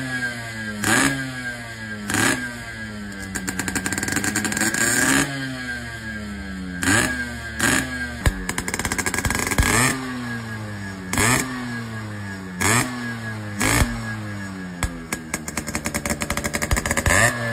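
Yamaha RX100's single-cylinder two-stroke engine revved in repeated sharp throttle blips, each one rising quickly in pitch and falling back toward idle, about a dozen times. As the revs drop, the exhaust gives a rapid crackling.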